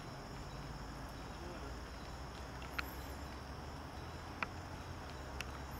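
Insects chirping in a steady high drone over a low, even hum and a soft wash of background noise, with a few sharp ticks about three, four and a half and five and a half seconds in.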